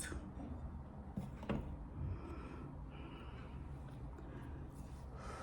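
Someone quietly tasting soup: soft breath and mouth sounds, with one light click about a second and a half in.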